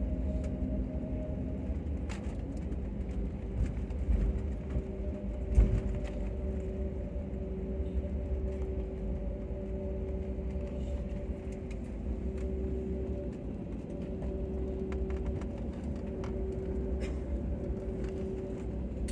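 Jet airliner cabin noise during the landing rollout: a steady rumble of engines and wheels on the runway, with a faint steady hum. A couple of bumps come through about four and five and a half seconds in.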